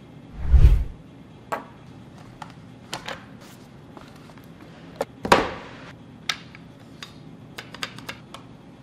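Unboxing handling sounds: a dull thump with a deep low end about half a second in, then scattered taps and knocks of a presentation box being opened and a chef knife in its sheath being lifted out. A sharper knock with a short rustle comes just after five seconds, followed by several quick clicks.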